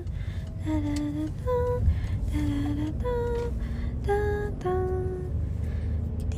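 Music: a slow melody of held notes that step up and down, over a steady low backing.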